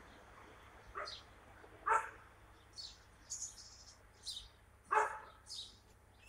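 A dog barks three times, short single barks about a second in, just before two seconds and about five seconds in, with small birds chirping throughout.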